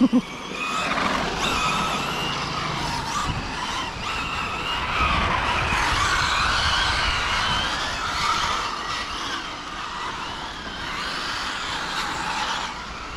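Radio-controlled model car being driven hard round a track, its motor rising and falling in pitch as the throttle is worked.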